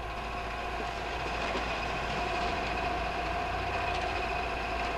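A loaded metal wheelbarrow rolls and is tipped out, its load of charcoal briquettes sliding and clattering onto the ground in a steady rattling rumble, with a steady high whine running through it.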